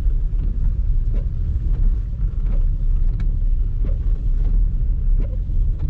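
Low, steady road rumble heard inside a car driving on a wet road in the rain, with the windshield wipers running and faint ticks coming at a regular pace.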